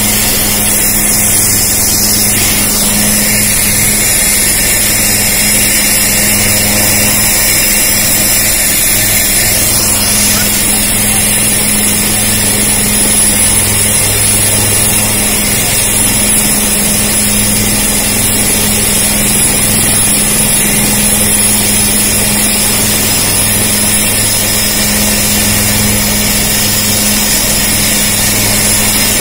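Military helicopter running on the ground with its main rotor turning: loud, steady engine and rotor noise with a thin high turbine whine over it.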